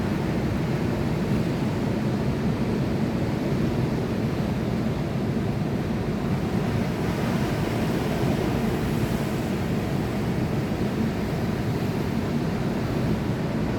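Sea surf, a steady low rumble with no single wave standing out.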